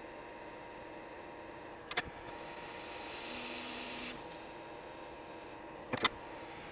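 Hot air rework station blowing for about two seconds, a soft rush of air with a low steady hum, set between sharp clicks of tools on the bench: a click just before it starts and a double click about four seconds later. It is heating the iPhone logic board during rework.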